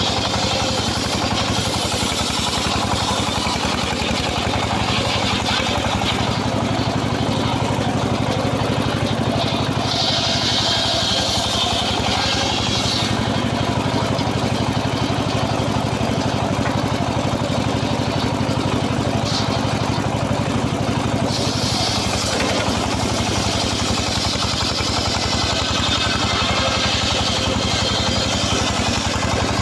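A small saw engine running steadily at an even speed, with a brighter, hissier sound added about ten to thirteen seconds in and again from about twenty-one seconds on.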